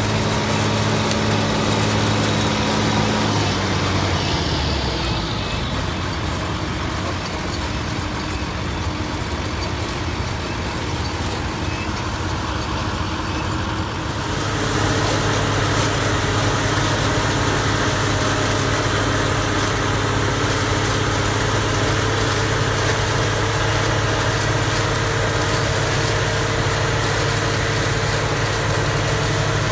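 Heavy engines of tomato-harvesting farm machinery running steadily. Their pitch changes about three seconds in and again about halfway through.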